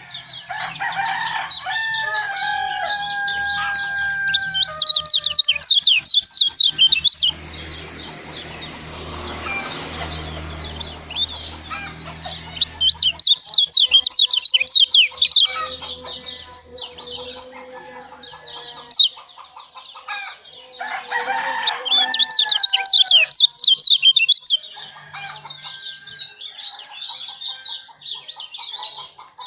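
Kecial lombok songbird song: bursts of rapid, high-pitched chirping trills with short gaps between them. A lower, drawn-out call sounds in the first few seconds, and a hiss in the middle.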